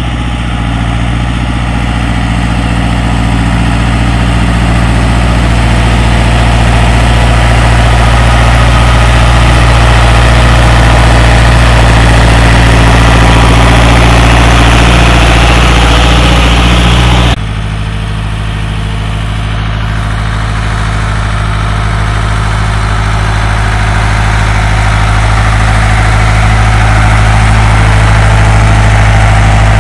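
Deutz-Fahr 6006 tractor's four-cylinder air-cooled diesel engine running steadily under load while pulling a plough, growing louder as it comes closer. A little over halfway through the sound drops and changes abruptly, then builds again.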